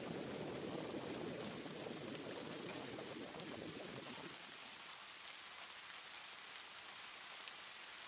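Steady rushing water noise. Its deeper part drops away about four seconds in, leaving a fainter, higher hiss.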